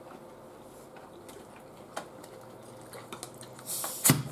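Scattered light clicks and scrapes of hands and utensils working at a tray of nachos, with a louder rustle and a knock about four seconds in.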